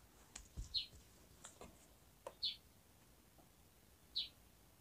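A bird chirping faintly in the background: three short high chirps evenly spaced about a second and a half apart, with a few faint clicks in between.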